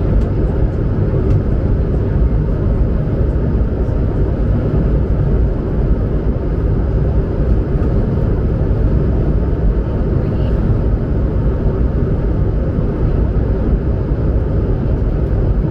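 Steady low rumble inside the passenger cabin of an Airbus A220-100 airliner: the noise of its Pratt & Whitney PW1500G geared turbofan engines and the air rushing past the fuselage, even and unchanging throughout.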